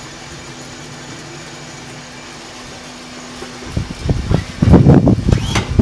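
Steady whooshing hum of a coffee roaster's exhaust blower pushing air and smoke out through a flexible foil duct, with one steady low tone running through it. Loud, irregular rumbling bursts break in over the last couple of seconds.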